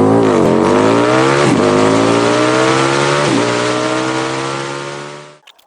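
Electric power tool with a 3/16 Allen bit backing out a primary cover bolt: a loud motor whine that climbs slowly in pitch, sags briefly three times, then stops about five seconds in.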